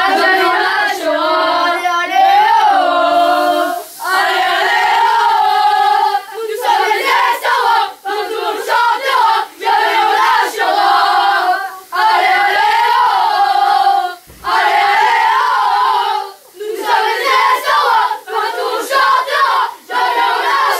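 A group of boys chanting a victory song together in unison, in loud repeated phrases of about two seconds with short breaks between them.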